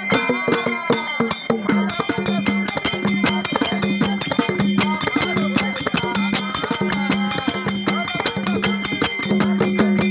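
Live folk music: a large hand-played dhol with small bells tied to it beats a steady rhythm, with a second drum, small brass hand cymbals ringing, and a voice singing over them.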